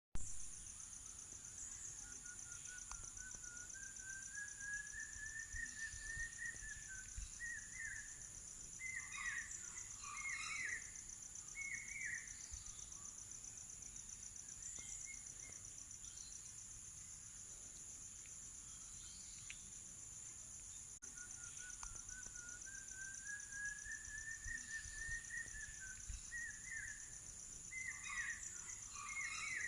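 Insects trilling in a steady, high-pitched chorus, with a bird singing a slowly rising run of notes and then short chirps. The same bird phrases come again about two thirds of the way in.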